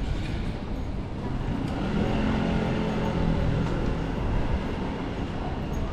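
A passing motor vehicle: its engine hum grows about two seconds in and fades again a couple of seconds later, over a steady low rumble of street traffic.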